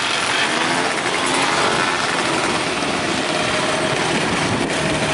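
Flat-track racing motorcycles running on the dirt oval, engine pitch rising and falling as they ride round.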